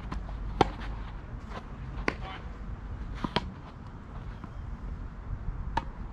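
Tennis ball being struck by racquets and bouncing on a clay court during a rally: sharp pops a second or two apart, over a low steady rumble.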